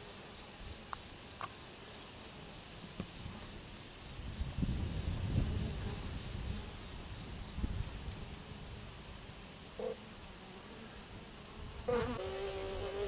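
Honeybees buzzing in flight close to the microphone: short buzzes as they pass, and a longer, steadier buzz near the end as a bee flies by. Between them there is a low, irregular rumble.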